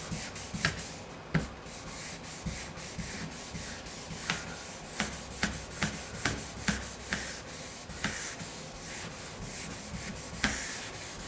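Hand wet sanding with 1500-grit paper on a soft sanding block, leveling a run in the car's clear coat: a steady rubbing hiss with short, irregular scuffing strokes, a few each second.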